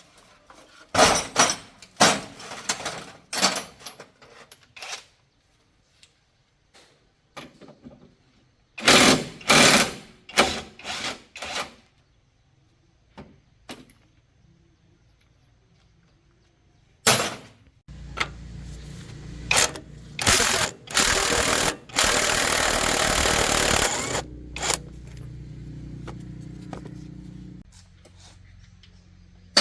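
Hand tools clacking and knocking on metal truck parts in short bursts during clutch and gearbox work. Later a steady low mechanical hum starts, with a loud rushing, hissing burst for about three seconds.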